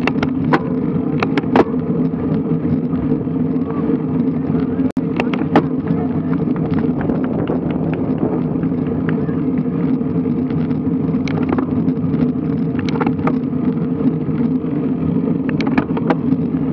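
Wind and road noise from riding a road bike, picked up by a bike-mounted action camera: a steady low rush with scattered sharp clicks and knocks.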